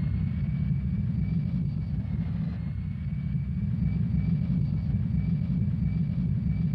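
Jet airliner taking off: a steady, loud, low engine rumble with a thin, high, unchanging whine on top.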